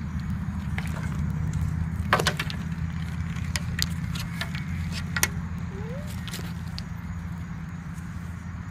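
A soft structured baby carrier being handled, its buckles and straps giving a few sharp clicks and rattles. A steady low hum runs underneath.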